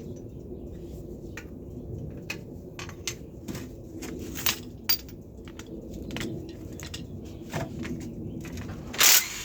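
Hand tools clicking and clinking against metal engine parts in irregular, scattered taps while a bolt is being worked on the engine's accessory pump, with a louder, longer metallic clatter about nine seconds in.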